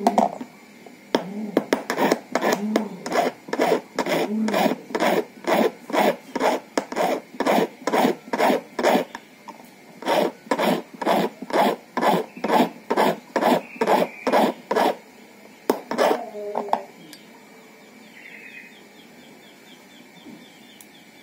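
Hand file rasping back and forth on a metal key blank as a new key is cut by hand, about two strokes a second. There is a brief pause about nine seconds in, and the filing stops about three-quarters of the way through.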